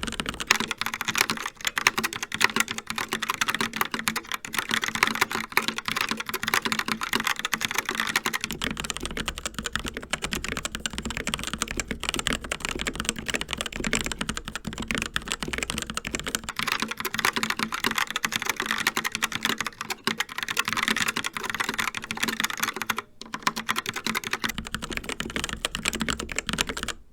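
Continuous fast typing on mechanical keyboards, a dense run of key clicks. It alternates every eight seconds between Logitech POP Keys with tactile TTC Brown switches and a CZC Reaper with linear TTC Red switches, changing at about 8, 16 and 24 seconds in. There is a brief pause in the typing a little before the last change.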